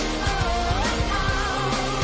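Pop song with a steady beat and a wavering, sliding melody line.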